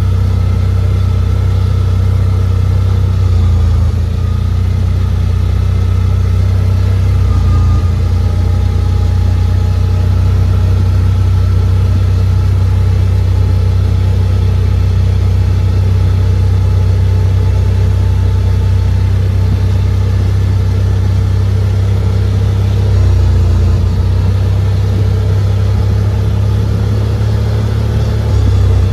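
CFMoto ZForce 950 side-by-side's engine running as it drives along a paved road, heard from the driver's seat: a loud, steady low drone that shifts slightly a few times as the throttle changes.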